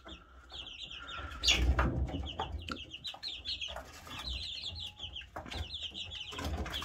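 Young Silkie chicks peeping in quick runs of short, high chirps. About a second and a half in there is a louder rustling thump.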